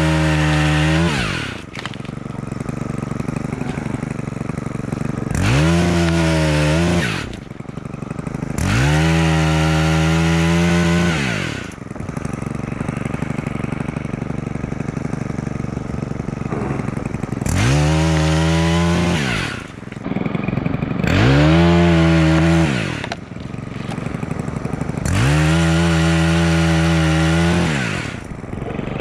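Two-stroke chainsaw cutting tree limbs: it revs up to full throttle six times, each burst lasting one to three seconds, and drops back to idle between cuts.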